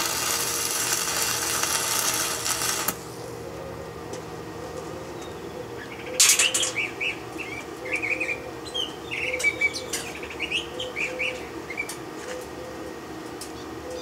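Wire-feed welding arc crackling steadily, cutting off abruptly about three seconds in. After a sharp click around six seconds, birds chirp in short calls for several seconds.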